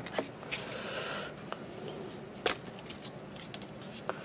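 Hands handling small terry-cloth towels beside a cellophane wrapper: soft rustling and crinkling with scattered sharp clicks, a longer rustle about a second in and the sharpest click about two and a half seconds in.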